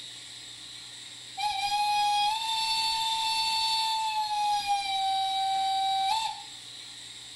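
A model steam locomotive's sound system blowing a steam whistle over a steady steam hiss. The whistle starts about a second and a half in and is held for about five seconds. Its pitch steps up a little early on and sags slightly before it cuts off.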